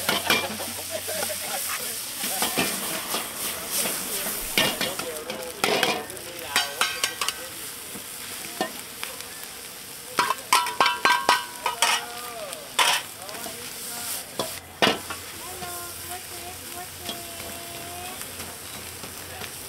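Food sizzling as it fries in a pan, with a metal spatula clanking and scraping against the pan as it is stirred. The clanks come in clusters, a quick run of ringing strikes about halfway through.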